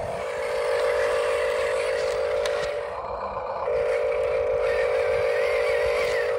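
Small electric gear motor of a scale RC construction vehicle whining at a steady pitch. It runs twice, stopping briefly about three seconds in, and cuts off sharply at the end.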